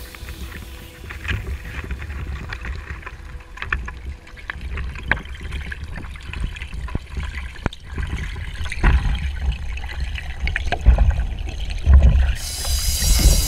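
Underwater sound heard through a GoPro's waterproof housing on a speargun while a freediver kicks with long fins: a low rumbling water wash with scattered clicks and knocks, swelling in the later part, and a bright hiss setting in near the end.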